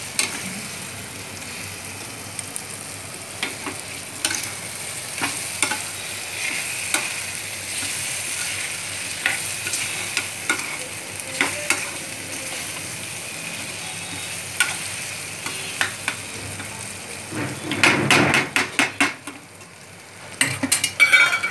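Taro (arbi) pieces and onion-tomato masala sizzling in a metal kadai while a slotted metal spatula stirs and scrapes through them, with short clicks of the spatula on the pan. A run of louder scraping knocks comes about three quarters of the way in and again near the end.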